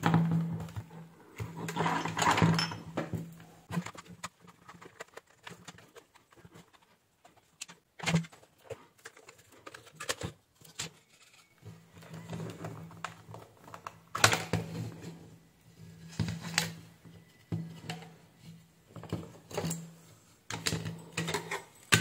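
Scattered plastic clicks, taps and knocks as a hair dryer's plastic casing is handled, unscrewed and pried apart by hand, over a low steady hum.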